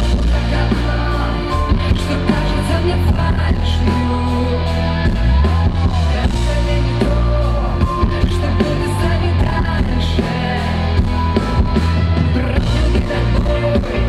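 A live rock band plays amplified, with a woman singing lead into a microphone over a steady drum beat and heavy bass.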